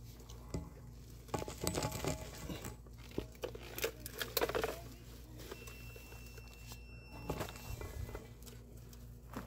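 Rustling and crinkling of a spent, deflated car airbag and dry brush as the bag is pushed and dragged along the ground with a stick, in a few irregular spells with small clicks.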